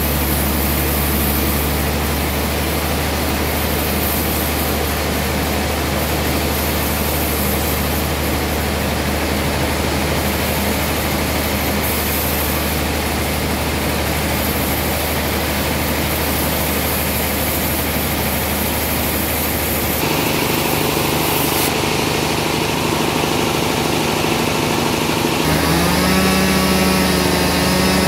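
Band sawmill machinery running steadily with a loud low drone while the log is set in place. Near the end a chainsaw runs and revs up and down.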